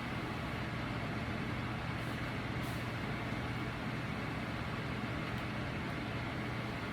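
A steady mechanical hum with even hiss, unchanging throughout, and a faint tick about two and a half seconds in.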